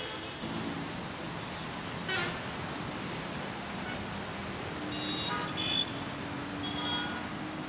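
Steady city road-traffic noise with several short vehicle horn toots, most of them between about five and seven seconds in.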